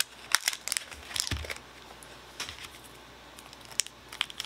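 Foil wrapper of a Disney Lorcana trading-card booster pack crinkling in the hands, in short scattered crackles, with a soft thump about a second and a half in.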